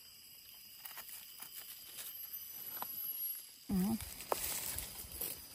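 Knife cutting through the thick stems of bolete mushrooms in soil, with light rustling and crackling of dry bamboo leaf litter. A short wavering voice-like sound comes about two-thirds of the way in, followed by a sharp click.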